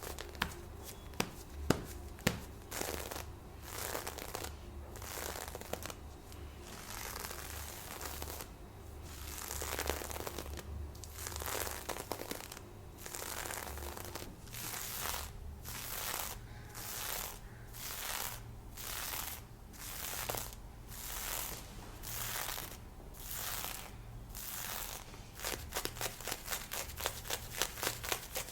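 Lace fishnet stockings, black and white nylon, being scratched and rubbed close to a binaural microphone in slow, even strokes of about one a second, turning to quicker, shorter scratches near the end.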